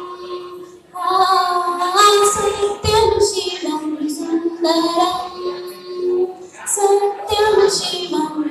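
A woman singing into a handheld microphone, holding long, sliding notes, with a short break about a second in before the line resumes.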